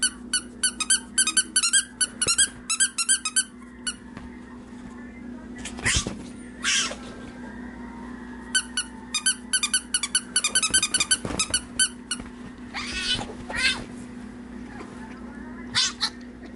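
Plush dog toy's squeaker squeezed by hand in rapid runs of short, high squeaks, several a second: one run at the start and another from about 8 s to 12 s. A few separate, louder sounds come in between and near the end.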